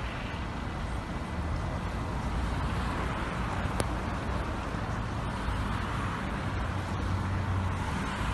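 Steady road traffic noise with a low engine hum from stopped and slowly moving vehicles, and one sharp click about four seconds in.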